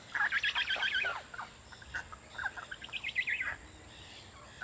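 Jabiru stork chicks giving rapid, chattering begging calls, in two bouts of about a second each.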